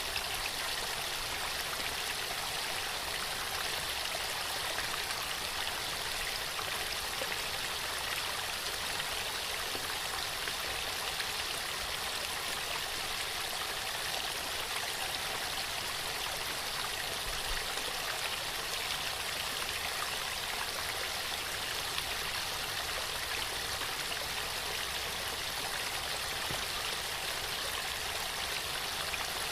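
Waterfall: water falling and rushing in a steady, even hiss with no pauses.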